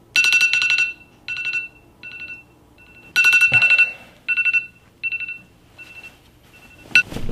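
Smartphone alarm going off: rapid high-pitched beeps in repeated bursts, some loud and some faint. There is a rustle about halfway through and a sharp click near the end.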